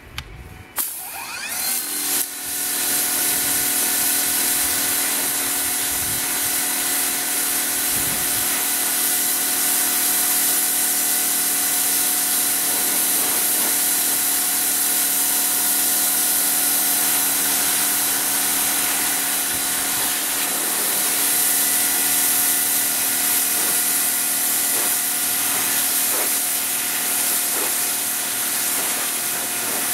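Sun Joe SPX6000C 40-volt cordless pressure washer running: its electric motor and pump spin up with a rising whine over the first couple of seconds, then run steadily. The water jet hisses loudly against rubber car floor mats.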